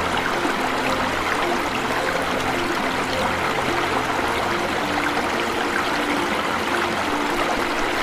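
Small waterfall and stream splashing and rushing steadily, with no pauses. A soft melody of short low notes runs underneath.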